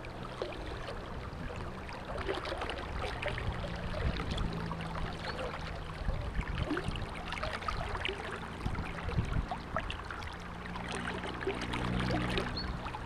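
River current rushing and lapping close to the microphone, an uneven wash of many small splashes, over a low steady hum.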